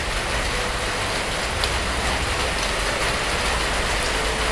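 Steady hiss of rain falling, with a faint click about one and a half seconds in.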